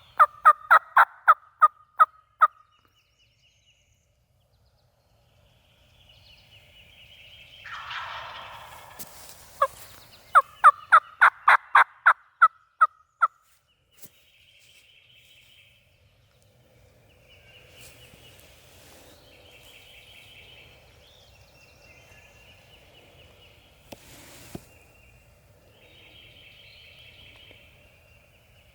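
Turkey calling in two runs of about ten loud, sharp, evenly spaced notes, the first ending a couple of seconds in and the second starting about ten seconds in. Faint high bird chirps in between.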